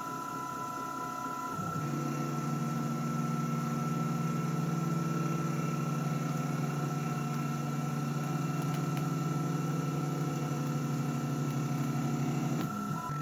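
Rownd desktop CNC milling machine running: a steady high spindle whine, and a lower steady motor hum from the axis drives that starts about two seconds in and stops near the end.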